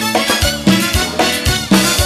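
Live dance band playing a tropical number: electronic keyboard over drum kit and bass, with a steady, regular beat.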